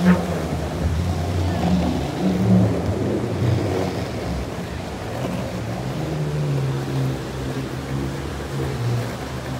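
Longboard wheels rolling over a steel-plate bridge deck, a steady low rumble, over the rushing of river rapids below. A single sharp knock comes right at the start.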